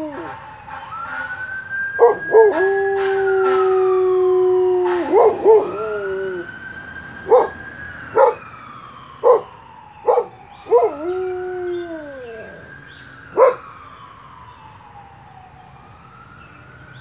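A dog howling along with a wailing siren: two long, steady howls with yips at their start and end, and short barks between them, while the quieter siren slowly rises and falls in pitch about every five seconds. The dog falls silent for the last few seconds, leaving only the fading siren.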